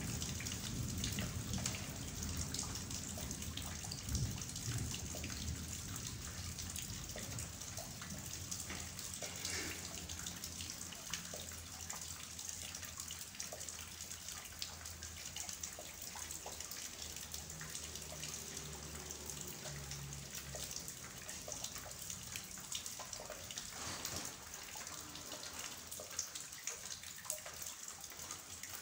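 Heavy rain falling steadily, a dense patter of drops splashing into puddles and standing water.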